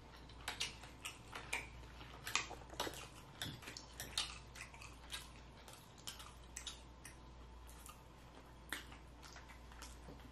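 A person chewing food close to the microphone, lips smacking: irregular short wet clicks, busiest over the first seven seconds and sparser near the end.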